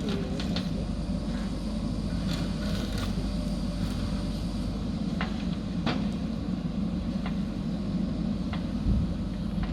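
JCB backhoe loader's diesel engine running steadily under work, with scattered sharp metallic knocks and a low thump near the end.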